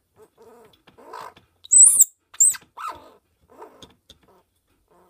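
Baby squirrel crying in a string of short, pitched calls, with two loud, very high-pitched squeals about two seconds in.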